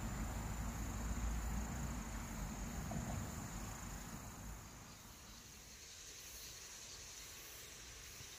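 Insects chirring steadily in a thin, high, unbroken tone. Under it a low rumble runs for the first four seconds or so, then falls away, leaving mostly the insects.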